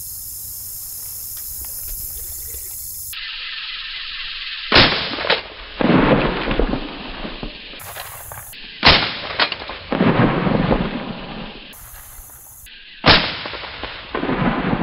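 Three shotgun shots at doves, about four seconds apart, each followed about half a second later by a fainter crack and a long rumbling tail.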